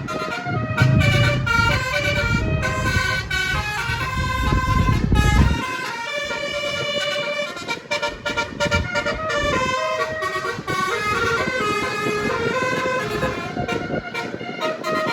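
Nine-note telolet basuri bus horn playing a quick stepped melody of tooting notes. A low rumble sits under it for about the first five seconds.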